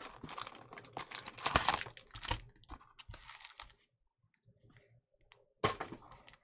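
Cardboard trading-card hanger box being opened and a cellophane-wrapped stack of cards handled and pulled out: a dense run of crackling, rustling and clicking for about four seconds, a lull, then a sharp crackle near the end.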